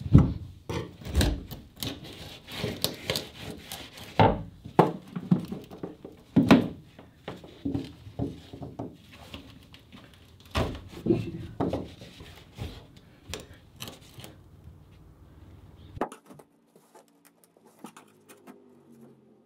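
A steel chisel scraping and prying at an old plywood backer board sealed to a fiberglass hull. It makes irregular scrapes and sharp wooden knocks, and the sound falls away about 16 seconds in.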